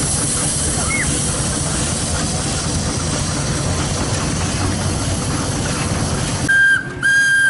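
Portable steam engine belt-driving a threshing machine: a steady hiss of escaping steam over a low, rhythmic machine rumble. Near the end its steam whistle gives two short, loud blasts.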